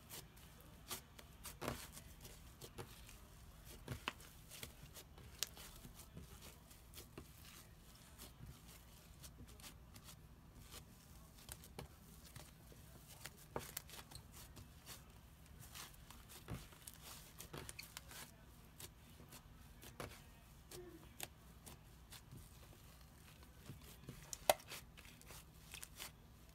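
Floam slime, packed with tiny foam beads, being pressed flat, folded and kneaded by hand, giving soft, irregular crackles and pops, with one sharper pop near the end.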